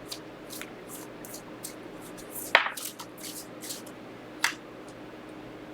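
Tarot cards being handled: a few soft swishes of card against card, with two sharper card snaps about two and a half and four and a half seconds in, over a faint steady room hum.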